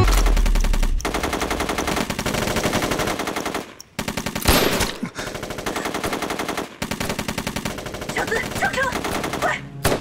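Rapid gunfire, many shots in quick succession from several guns, with a brief lull about four seconds in.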